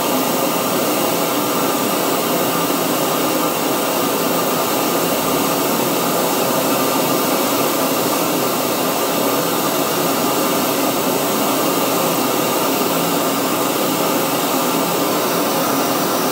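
Pink noise test signal played through full-range PA loudspeakers for an acoustic measurement: a steady, even hiss. There is little energy below about 100 Hz because the crossover cuts their low end with a 48 dB-per-octave slope.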